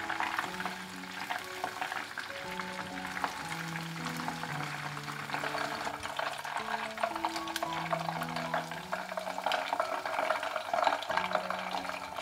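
Chicken wings frying in a pot of hot oil, giving a steady crackling sizzle, while the golden-brown wings are lifted out with tongs. Soft background music of slow held notes plays over it.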